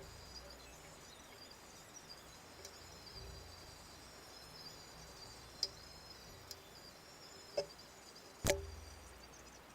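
A few sharp metallic clicks and knocks from parts of an old Fobco Star pillar drill head being handled during disassembly. The last knock, near the end, is the loudest and rings briefly.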